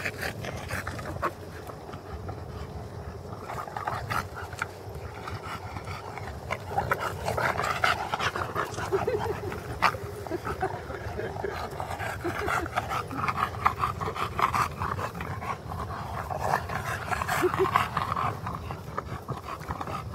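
Two bulldogs play-fighting, breathing hard and panting, with a few brief vocal noises.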